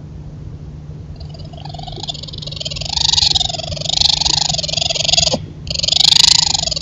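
Raccoons making loud mating calls: a rough, wavering call that rises and falls in pitch about once a second, starting about a second in, pausing briefly about five seconds in, then coming back at its loudest. A steady low hum runs underneath.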